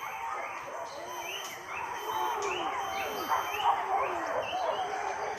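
A pack of hunting dogs yelping and baying in the forest during a chase: many short, arched cries at different pitches overlapping throughout.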